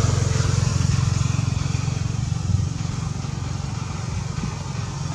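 A motor vehicle engine running steadily, slowly growing fainter.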